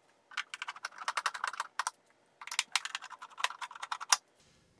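Quick, irregular clicking and light rattling as a screwdriver works at the plastic case of a Tandy 1000 to free it, in two runs with a short pause in between.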